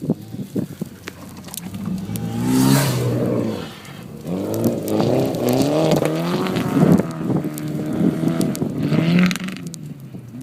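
Mitsubishi Lancer Evolution engine revving again and again, its pitch rising and falling, with a short burst of hiss a few seconds in.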